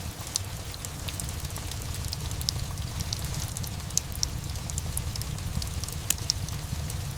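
Ambient mix of steady rain and a crackling wood fire: an even rain hiss over a low steady rumble, with scattered sharp crackles and pops, a few louder than the rest.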